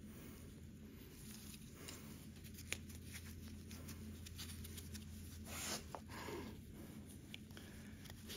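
Faint handling sounds of a pick tool and a rubber seal being worked onto a hydraulic lift-cylinder part: small ticks and rubbing, with one sharper tick a few seconds in and a brief louder scrape a little before six seconds in, over a steady low hum.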